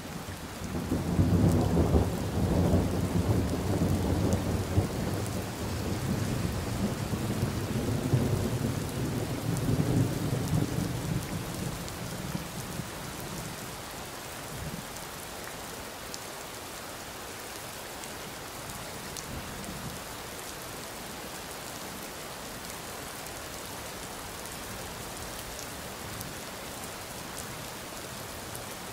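Rain falling steadily with a long roll of thunder. The low rumble starts about a second in, rolls for around ten seconds and dies away, leaving the even hiss of the rain.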